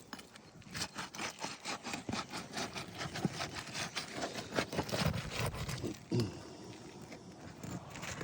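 Rapid, irregular scraping and rasping strokes of a roofing tool worked under asphalt shingles to break them loose and get at the nails.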